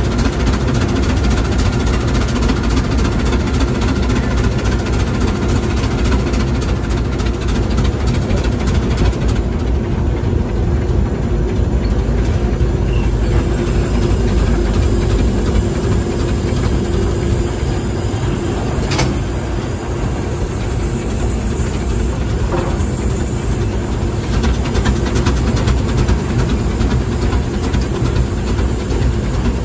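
Steam road locomotive running under way, heard from its cab: a steady, loud mechanical running noise.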